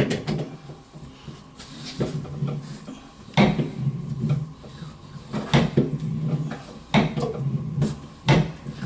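Hand tools knocking and clanking against a water supply pipe: about six sharp knocks, irregularly spaced a second or so apart.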